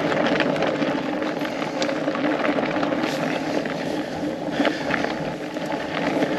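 Fat bike on studded tyres rolling over a frozen, snowy trail: a steady tyre hum, with a few light clicks and rattles from the bike.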